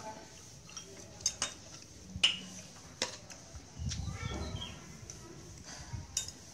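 Chopsticks clicking against a stainless steel bowl and plates while food is picked out: a handful of separate sharp clicks, with a muffled stretch of handling noise about four seconds in.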